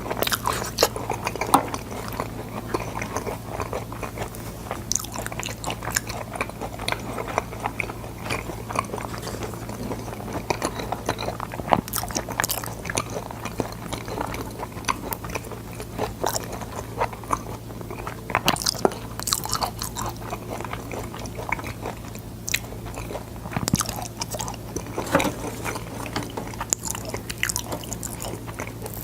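A person biting and chewing boiled sword beans close to the microphone: irregular crisp crunches and wet chewing, with a steady low hum underneath.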